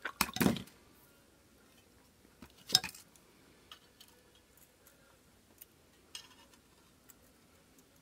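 Light metal clinks and taps as 22-gauge wire and a small cut-tin bird are handled and the wire end is turned. There is a cluster of clinks at the start, a sharp clink nearly three seconds in, then a few faint ticks and a brief scrape.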